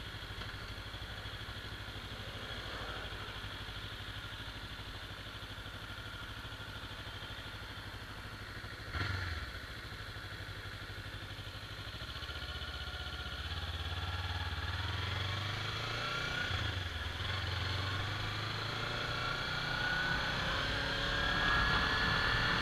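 Kawasaki Ninja 300's parallel-twin engine running low and steady, with a brief thump about nine seconds in. In the second half the engine note builds, and a rising whine climbs over the last few seconds as it revs up.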